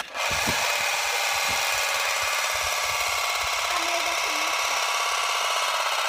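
Magnetic tornado spheres spinning against a glass mirror, a steady, fast buzzing rattle.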